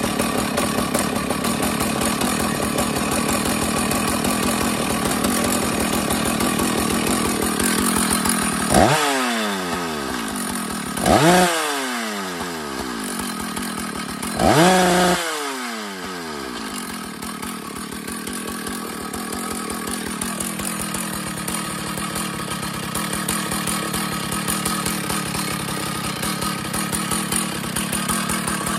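Husqvarna 1100CD two-stroke chainsaw engine running fast and steady, then revved three times in a few seconds, each rev falling away quickly. About two-thirds through it settles to a lower, steady idle. The owner is fighting an air leak at a crank seal.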